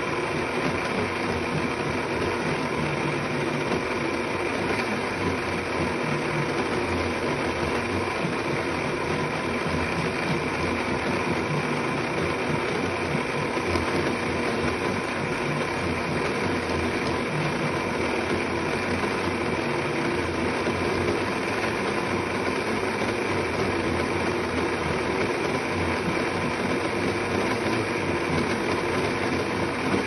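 Countertop blender motor running steadily at one speed, a continuous whirring hum with no change in pitch or level.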